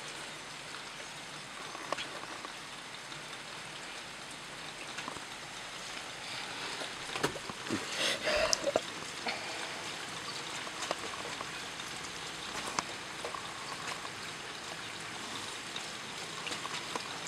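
Heavy rain pouring down on rooftops and a street, a steady hiss with scattered drips and splashes that come thicker about halfway through.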